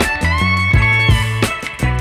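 Background music: a guitar-led instrumental over a steady drum beat.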